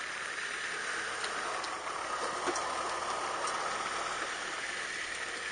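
Vehicle driving slowly, a steady mix of engine and road noise heard from inside the cab, with a few faint rattles.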